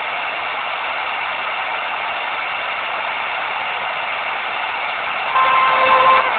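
Degen DE1103 portable radio hissing with FM static between stations as it scans up the band. About five seconds in, a steady tone breaks through the hiss and gets louder as the receiver passes a signal.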